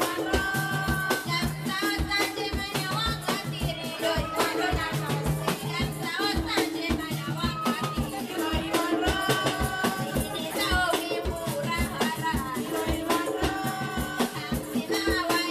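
Dance music: a barrel drum beaten in a steady, quick rhythm under voices singing a melody, with a rapid shaking sound over it.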